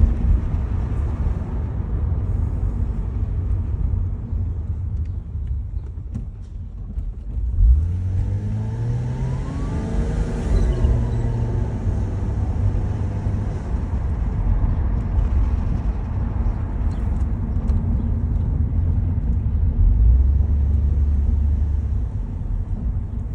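1991 Toyota Soarer being driven: steady engine and road rumble, with the engine note rising as it accelerates about eight seconds in.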